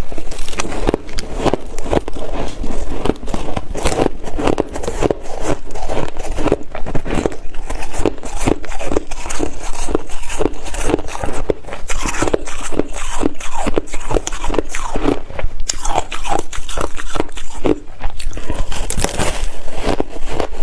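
Close-miked ice being bitten and chewed: a steady run of crisp crunches.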